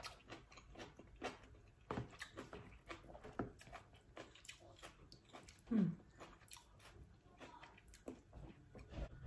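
A person chewing a mouthful of noodle soup, with many soft clicks and smacks, and a brief hum about six seconds in.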